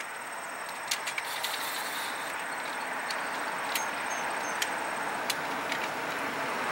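Freight train rolling past: a steady rumble that slowly grows louder, with scattered sharp clicks.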